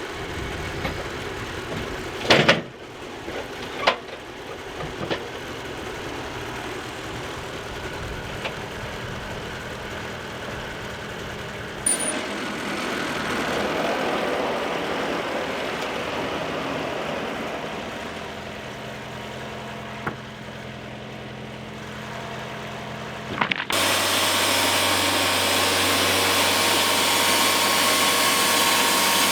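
Wood-Mizer portable sawmill's engine running steadily, with a few sharp knocks in the first five seconds, the loudest about two seconds in. Near the end it steps up suddenly to a louder, steady whirring run.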